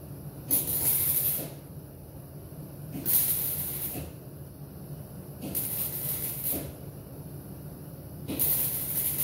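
MIG welder laying short stitch welds on thin sheet-metal body panel: four bursts of arc hiss and crackle about a second long each, roughly two and a half seconds apart, over a steady low hum.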